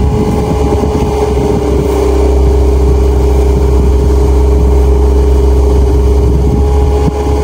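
Compact track loader's engine running steadily with a steady whine over a deep hum, driving its hydraulic auger attachment to bore a post hole.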